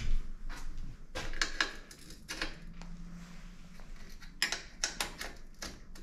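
Light metal clicks and taps as a Deore LX rim brake arm is slotted onto a bicycle's rear brake boss and a hex key works its mounting bolt, coming in two short flurries.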